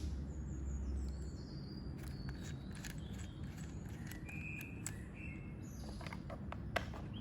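Faint scattered clicks and taps of a cordless drill and its chuck being handled, with a sharper click near the end, over a low background rumble and faint bird chirps.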